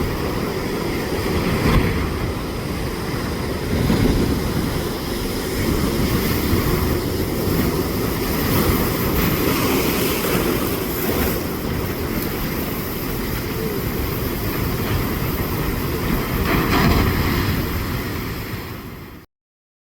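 Heavy ocean surf rumbling, swelling now and then as waves break. It cuts off suddenly near the end.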